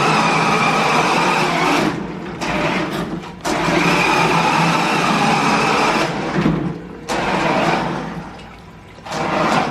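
Jada 1995 Toyota Supra toy RC drift car running: its small electric motor whines over tyre noise, dropping away briefly a few times and going quieter near the end as the throttle is eased off.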